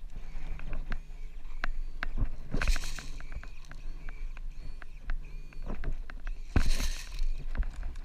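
Airsoft gunfire: scattered sharp clicks and snaps, with two short, louder bursts about three seconds and about seven seconds in.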